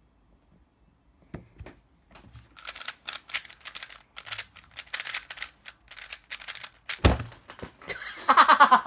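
Rapid plastic clicking of a speedcube being turned for about five seconds, ending in a thump as the hands come down on the timer. Near the end comes a short excited cry.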